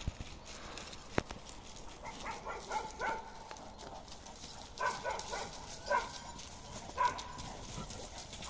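A dog giving short, high-pitched calls, several in a row about a second apart, with a few sharp clicks before them.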